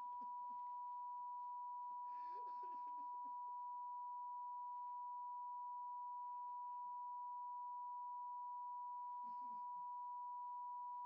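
A steady, pure high-pitched electronic tone held at one pitch without change, with faint voice sounds beneath it a few times.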